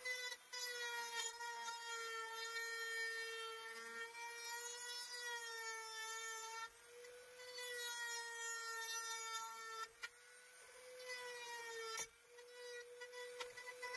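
Corded rotary tool whining steadily as it grinds down the battery-slot rails of a Powerworks 60V chainsaw so a Greenworks battery will fit, its pitch sagging a little as it bites. It cuts out briefly about ten seconds in and again near twelve.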